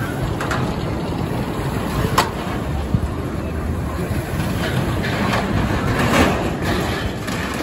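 Roller coaster car rolling down a spiral track around a tower, its wheels giving a steady rumble on the steel rails, with a few sharp clacks along the way.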